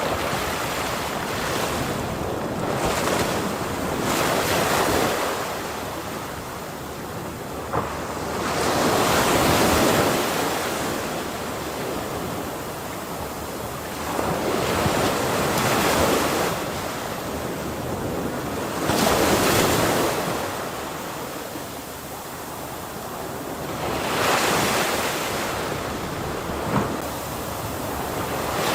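Ocean waves breaking on the shore, a steady wash of surf that swells and falls back in repeated surges about every five seconds.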